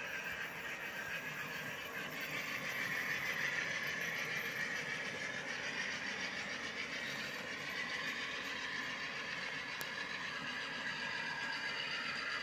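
G-scale garden model train running on outdoor track, an Aristo-Craft Dash-9 hauling a string of grain hopper cars: a steady high-pitched rolling sound from the wheels on the curving rails, loudest a few seconds in.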